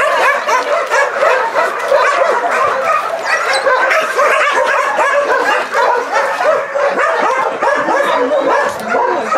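Many shelter dogs barking and yapping at once, in a dense chorus with no break, some yips mixed in.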